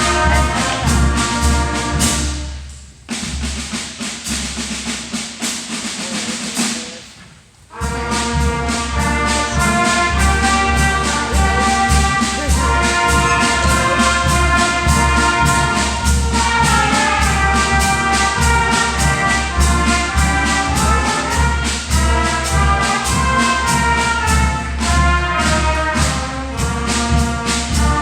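Military band music led by brass, the armed forces branch anthems played one after another. The music drops away briefly about three seconds in and comes back at full strength just before eight seconds, as one anthem gives way to the next.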